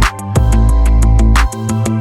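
Background music: an electronic track with a heavy bass and a steady beat.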